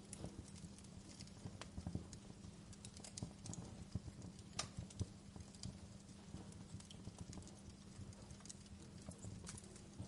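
Fire crackling softly: irregular small pops and snaps over a faint steady low hum.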